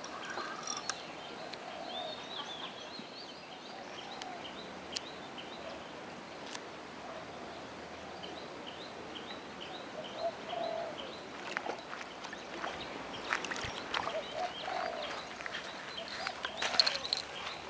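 Birds calling: short low calls every few seconds over many faint high chirps. A few sharp sounds come in the second half, the loudest near the end.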